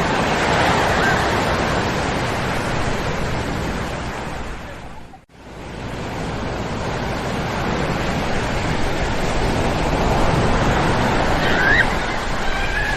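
Ocean surf breaking and washing up on a sandy beach in a steady, dense wash. It dips abruptly to near silence about five seconds in, then swells back. Near the end a child's high voice calls out faintly in the background.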